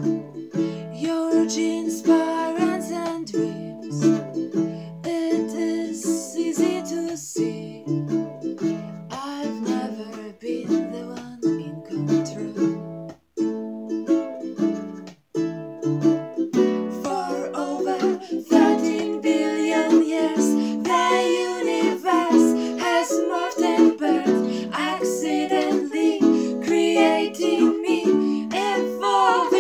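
A twelve-string acoustic guitar and a smaller acoustic guitar strumming the chords of a folk song. About seventeen seconds in, women's voices come in singing, two together near the end.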